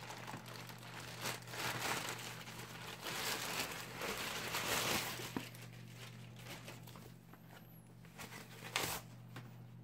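Grey plastic mailing bag crinkling and tearing as it is ripped open by hand, busiest from about three to five seconds in. Then softer rustling as a small cardboard box is pulled out of a foam wrap sleeve.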